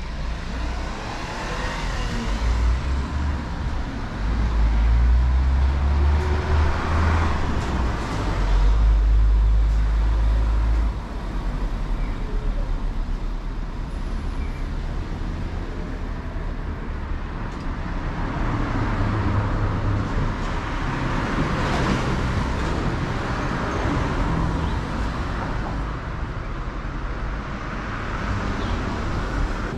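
Road traffic: cars passing along a town street, with a heavy low rumble over the first ten seconds or so and another car swelling past about twenty seconds in.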